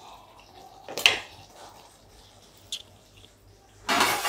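A wooden spatula knocks once against a metal kadai about a second in, with a lighter tap later. Near the end comes a loud, noisy clatter of kitchenware being handled.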